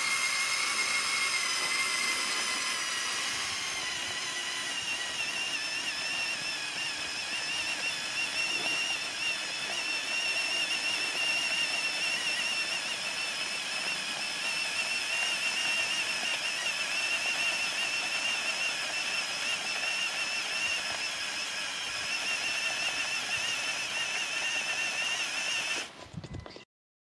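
Electric motors and gear train of a LEGO Technic 42129 Mercedes-Benz Zetros trial truck whining steadily as it drives, the pitch wavering slightly with load, then cutting off suddenly near the end.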